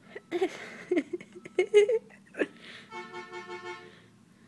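Toddlers squealing and shrieking in excited bursts. About three seconds in, a garbage truck's horn gives a rapid run of short toots lasting about a second.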